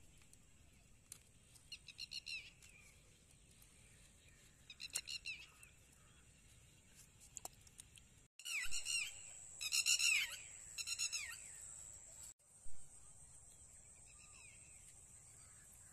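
Bird calls: groups of quick, falling, high chirps about two seconds in and again about five seconds in, then a louder run of three groups from about eight and a half to eleven seconds. A faint steady high-pitched tone runs underneath.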